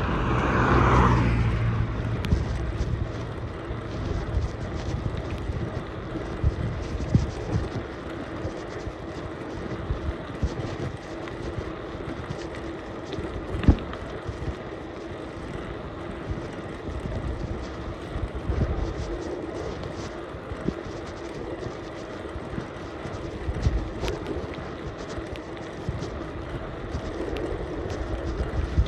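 Steady rush of a bicycle on the move, with tyre and road rumble and scattered short knocks from bumps. A louder rushing swell rises and fades in the first couple of seconds.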